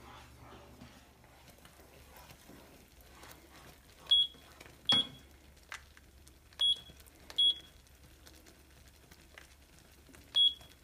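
Handheld infrared thermometer beeping: five short, high beeps at uneven intervals. This is its over-range warning, with the display showing "H" for a reading that is too high.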